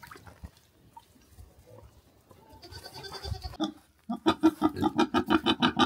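Pigs grunting in a fast, regular series, about four or five grunts a second, starting about four seconds in after a few faint rustles. These are startled pigs reacting to a small animal climbing into their feed bucket.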